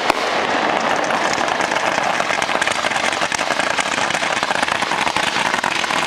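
Consumer fireworks going off: a dense, continuous crackle and hiss of many small pops, with a couple of sharper cracks at the very start.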